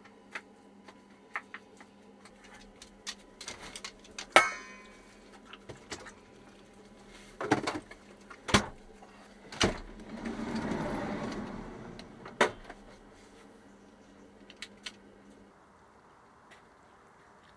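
Kitchen clatter in a camper van's small interior: scattered clicks and knocks of dishes and cupboard fittings being handled, with one loud clang about four seconds in that rings on briefly, several more sharp knocks, and about two seconds of rustling a little after the middle.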